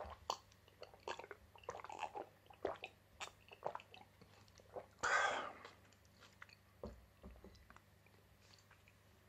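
Close-up eating mouth sounds: chewing with small wet clicks and smacks, then a louder rushing noise lasting under a second about five seconds in. A low knock just before seven seconds fits a drinking glass being set down on the wooden table.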